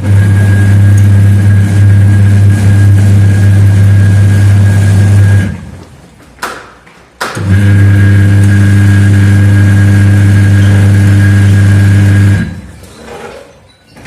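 Semi-automatic washing machine's electric wash motor running with a loud, steady hum. It runs for about five seconds, stops for about two seconds with a couple of clicks, then runs for another five seconds and stops, in the on-pause-on pattern of the wash cycle.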